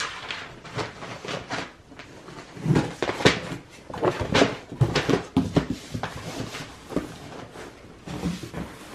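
Irregular rustling and soft knocks of close handling as a hand strokes a cat's fur on a fabric sofa.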